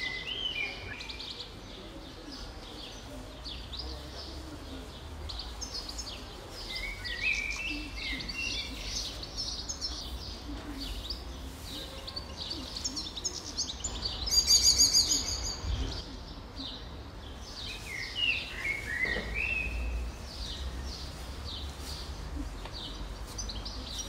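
Many songbirds singing together in woodland: overlapping chirps, trills and warbled phrases throughout, with one loud, rapid call from a nearby bird a little past halfway. A faint low rumble runs underneath.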